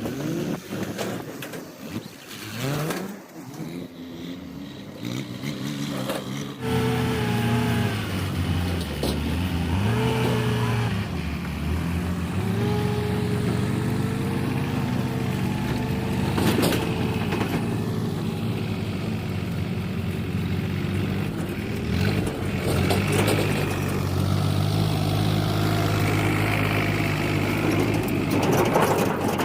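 Backhoe loader's diesel engine running, its pitch rising and falling as it revs up and down under work. The sound jumps louder about six and a half seconds in.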